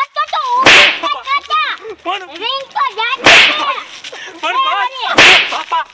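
Three loud, sharp whip-like cracks of blows, about two seconds apart, with a voice crying out between them.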